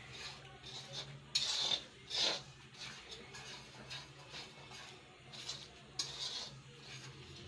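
Metal spatula stirring and scraping semolina around an iron karahi: a few short scrapes, the loudest about a second and a half in, just after two seconds, and at six seconds, over a steady low hum.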